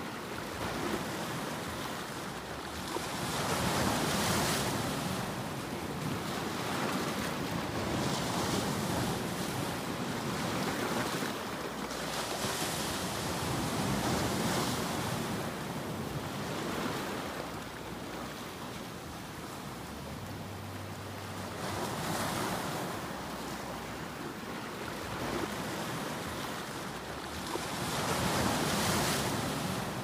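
Ocean surf breaking and washing against a rocky shore. It is a continuous rush of water that swells and fades in surges every few seconds as each wave comes in.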